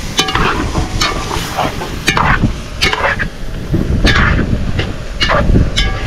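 Metal spoon scraping and clanking against a large aluminium pot as chunks of curried pork are stirred, with the meat sizzling in hot oil over a wood fire. The spoon strikes come irregularly, several times, some with a short metallic ring.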